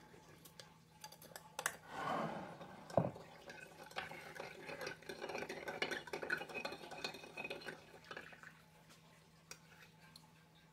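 Glass sugar jar handled with a sharp knock about three seconds in as it is closed, then a metal spoon stirring coffee in a ceramic mug, clinking against the sides for a few seconds and stopping about eight seconds in.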